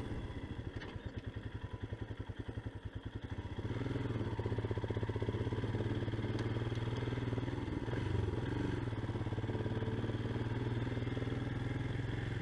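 Motorcycle engine at low revs, its separate firing pulses plainly heard for the first few seconds, then picking up a little under about four seconds in and running steadily.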